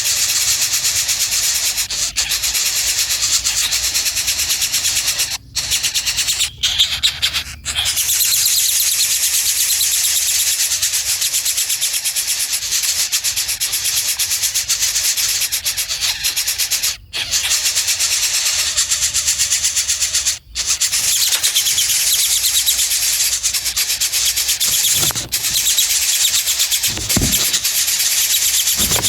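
Insects droning in a steady, high-pitched buzz, cut off abruptly for a moment several times.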